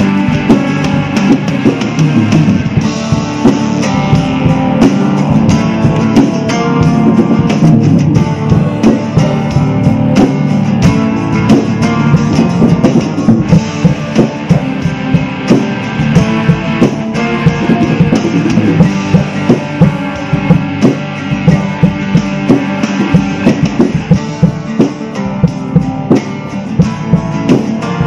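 Tama drum kit with Zildjian cymbals played live along to an instrumental rock backing track: dense kick, snare, tom and cymbal hits, several a second, over a continuous electric guitar part.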